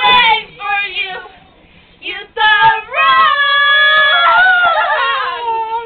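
A young voice singing without accompaniment, short phrases and then one long held note of about three seconds that wavers toward the end.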